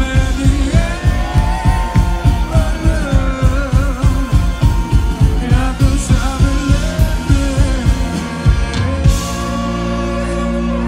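Live rock band playing: a male voice sings over electric guitar, bass and drums with a fast, steady beat. About nine seconds in the drums stop and a held chord rings on.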